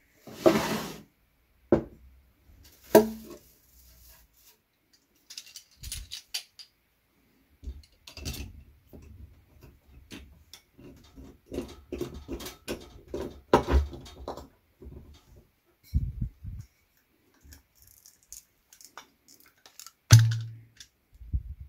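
A wine bottle is opened by hand. First a rustle as it is lifted out of wood-wool packing, then a run of small metallic clicks and scrapes as a chrome wing corkscrew is fitted and screwed into the cork. Near the end the cork comes out with one loud pop.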